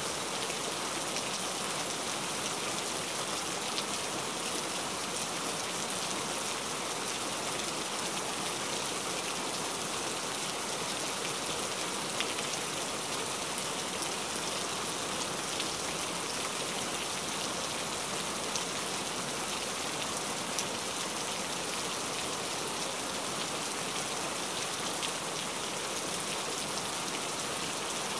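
Steady rain falling: an even hiss of many drops, with now and then a single louder drop tick.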